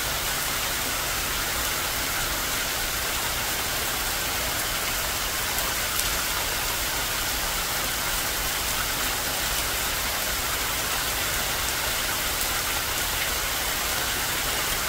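Steady heavy rain falling on leaves, grass and ground, with water streaming down off the roof edge and a few sharper drops standing out.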